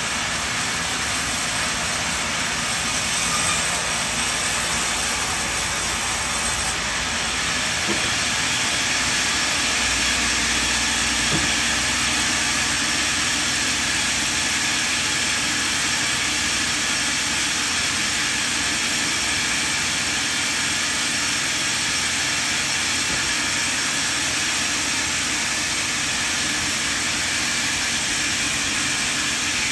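Large sawmill band saw running, its blade ripping lengthwise through a log, a steady hissing noise throughout.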